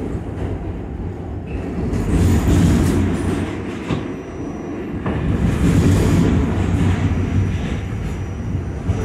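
Interior of a Pullman Standard R46 subway car running through a tunnel: steady rumble of wheels and running gear on the track, swelling louder twice, about two seconds in and again about halfway through.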